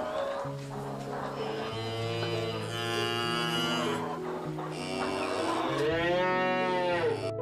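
A cow mooing in two long calls, the second one rising and then falling in pitch near the end, over background music.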